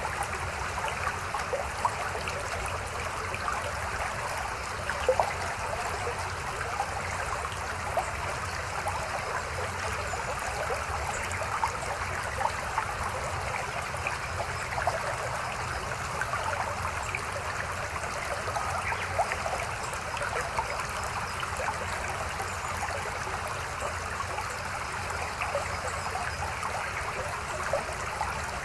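A mountain stream flowing over rocks, a steady babbling with frequent small splashes and gurgles.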